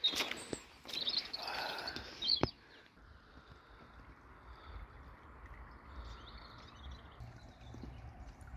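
Footsteps on a path that stop about two and a half seconds in, then small birds chirping faintly over a low steady background.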